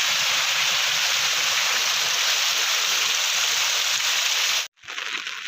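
Rainwater runoff rushing and flowing in a steady stream, cutting off suddenly near the end.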